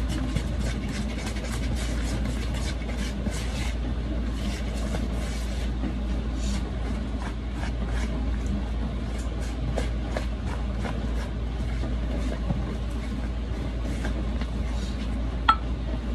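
A utensil stirring batter in a plastic mixing bowl, clicking and scraping against the bowl in rapid, irregular ticks. A single sharper knock comes near the end.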